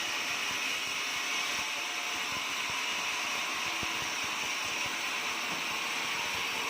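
Portable sawmill running steadily, an even, unbroken mechanical whir and hiss with no change in pitch or level.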